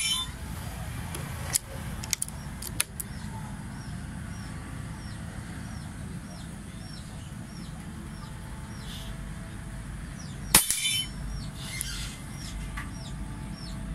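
A scoped air rifle fires once about ten and a half seconds in, and the pellet knocks over a steel plate on a knockdown target, which gives a short metallic ring. A few light clicks come in the first three seconds. A bird chirps about twice a second in the background.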